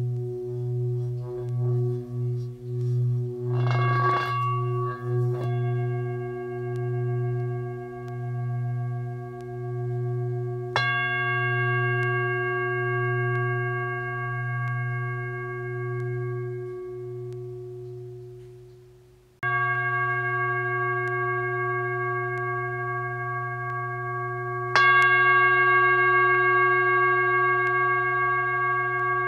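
Tibetan singing bowls ringing in long sustained tones, the deepest tone wobbling slowly. A brief shimmering rattle comes about four seconds in, and bowls are struck afresh about a third of the way through and again near the end. The ringing fades just past halfway, then cuts back in suddenly.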